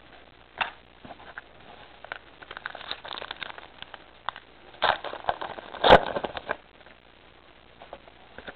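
Foil wrapper of a Pokémon trading-card booster pack crinkling and crackling as it is handled and torn open, with two louder crackles a little past halfway.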